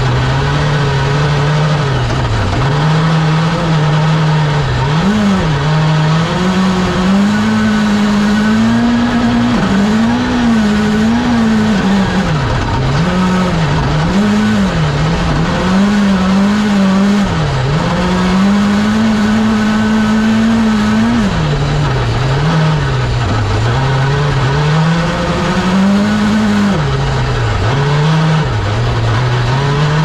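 Hyundai i20 N Rally1 Hybrid's 1.6-litre turbocharged four-cylinder engine, heard from inside the cockpit, driven hard. The revs climb and drop over and over through gear changes and lifts, with one longer pull held high a little past the middle.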